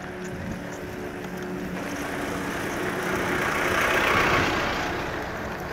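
A farm tractor pulling a trailer drives past, its diesel engine running steadily. Its sound grows to a peak about four seconds in and then fades as it goes by.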